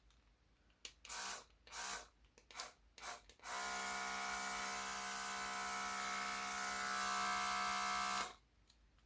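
Portable air-compressor mist sprayer running: a small motor's steady whine over the hiss of air spraying mist, starting about three and a half seconds in and cutting off abruptly about five seconds later. A few short hissy sounds come before it.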